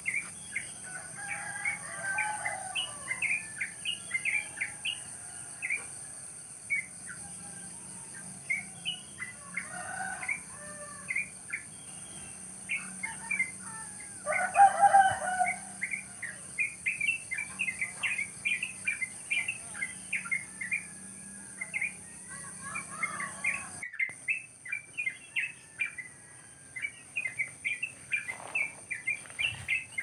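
Many wild birds chirping in quick, repeated short calls throughout. A rooster crows a few times, loudest about fifteen seconds in.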